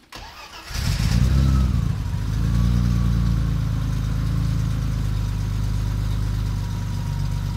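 BMW E30's MegaSquirt-managed engine starting up. It revs briefly about a second in, then settles into a steady idle.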